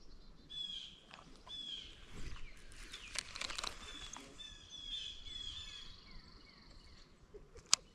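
Small birds singing, with repeated short chirping phrases, over quiet lakeside ambience. A brief noisy scuff comes about three seconds in, and a single sharp click comes near the end.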